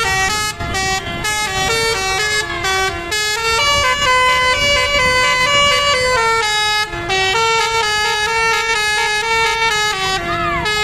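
Bus telolet horn, a multi-tone air horn, playing a quick melody of short notes, with one long held chord from about a third of the way in to just past halfway.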